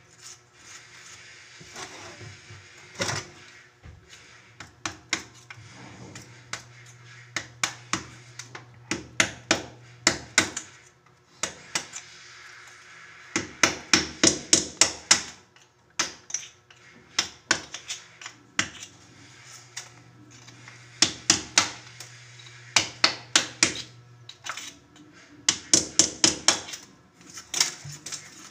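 Runs of sharp knocks, about four a second, broken by pauses, over a low steady hum that stops about ten seconds in and comes back for a few seconds later.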